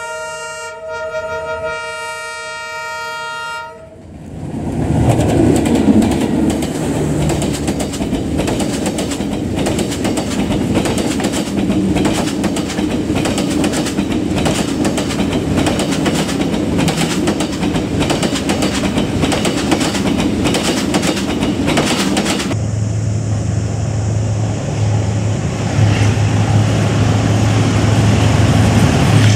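A diesel locomotive's multi-tone horn sounds a steady chord for about four seconds. Then passenger coaches pass close by, wheels clattering rapidly over the rail joints. Near the end this gives way suddenly to the steady low drone of a diesel locomotive's engine.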